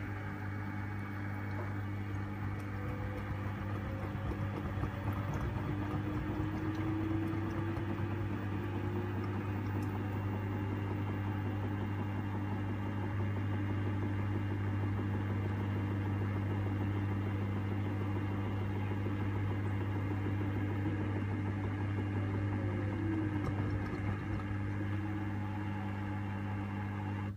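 LG TurboWash front-loading washing machine at the start of its intermediate spin: a steady low hum over the noise of the spinning drum, with a faint motor whine that rises in pitch in the first half and falls again near the end. The hum stops suddenly at the very end.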